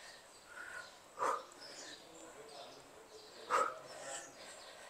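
A dog barking in single barks, twice, a couple of seconds apart.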